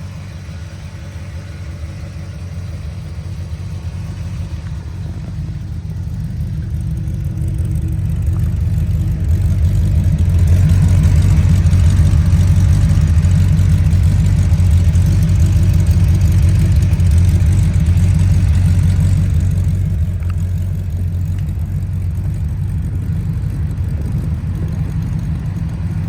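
The Jeep CJ-5's 350 crate V8 running at a steady idle. Its low exhaust note grows louder over about ten seconds, holds, then eases back down.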